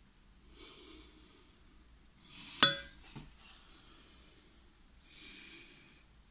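Soft, close breathing of a person, several breaths in a row. About two and a half seconds in comes one sharp metallic click with a brief ring, the loudest sound, followed by a smaller knock.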